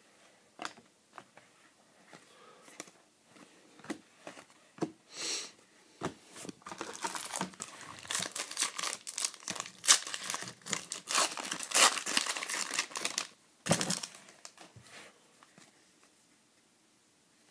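Foil wrapper of a 2011 SP Authentic football card pack being torn open and crinkled: a dense crackling run of about seven seconds in the middle. Before and after it come scattered light clicks of cards being handled.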